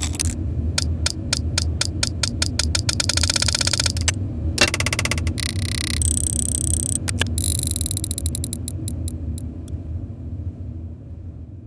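Small metal gear mechanism clicking: a run of sharp ticks speeding up into a fast ratchet, a short mechanical whir, then a run of ticks slowing down and stopping about two-thirds of the way through. A steady low ambient rumble runs underneath.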